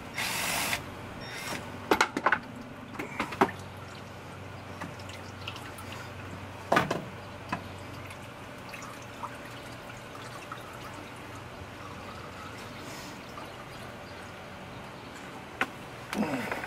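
Automatic transmission fluid dripping and trickling into a plastic bucket under a 68RFE transmission as its valve body comes out. A cordless driver runs briefly near the start, and a few sharp metal clicks and clanks of tools and parts come through.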